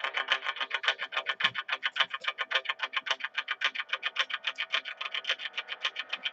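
Music with a fast, even pulse of about six beats a second.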